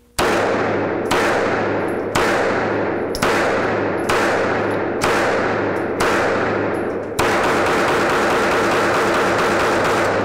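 Semi-automatic firearm firing single shots about a second apart, seven in all, each ringing out. From about seven seconds in it switches to rapid fire, and the shots merge into one continuous loud noise.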